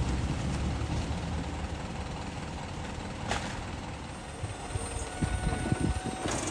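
Isuzu bin lorry's diesel engine idling while its side bin-lifter raises and tips a wheelie bin. A sharp click comes about three seconds in, and a run of knocks and clunks near the end as the bin goes up.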